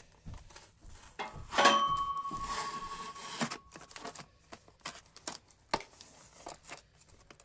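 Packing tape on a cardboard mailing box being slit with a hawkbill knife and ripped open. The loudest part is a tearing rip about a second and a half in, followed by scraping and sharp clicks as the cardboard flap is worked open.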